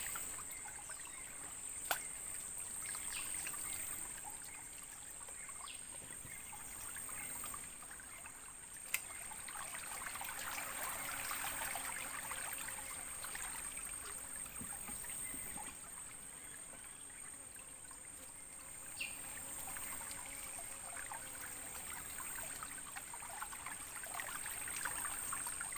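Faint river water trickling and flowing around a small boat, a steady gentle wash, with two sharp clicks about two and nine seconds in.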